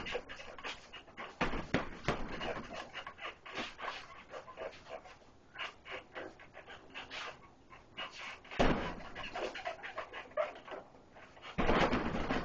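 Punches thudding on a hanging heavy bag in quick combinations, with a few harder hits standing out, one about two-thirds of the way through. Sharp, panting breaths come between the punches.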